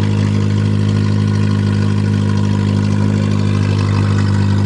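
Toyota Tercel's four-cylinder engine idling steadily, just after a cold start following a winter of sitting, running smoothly without misfiring.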